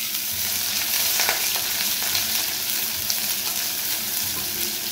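Sliced red onions sizzling as they fry in hot cooking oil, stirred with a silicone spatula that gives a few light knocks against the pot.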